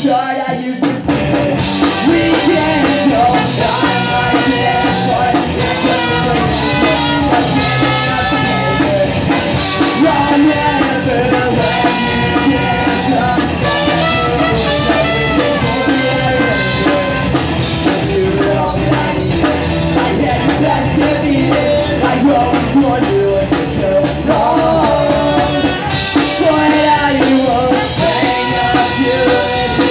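Ska-punk band playing live, with electric guitars, a drum kit and trumpet, and singing. The band drops out for a moment at the very start, then plays on at full strength.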